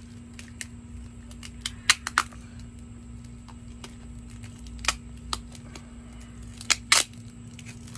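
Tape and plastic wrap being peeled off a plastic plant cup: short, sharp crackling rips in small clusters, one bunch about two seconds in, another near five seconds and the loudest near the end.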